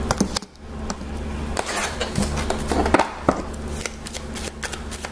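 Tarot cards being shuffled by hand: irregular quick clicks and flicks of card on card, over a steady low hum.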